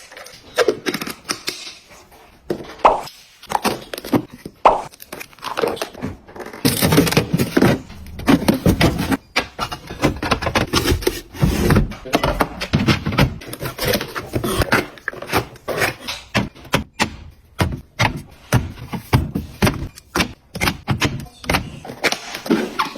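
Items being handled: a dense, irregular run of clicks, knocks and taps, with a brief rustle or tear about seven seconds in.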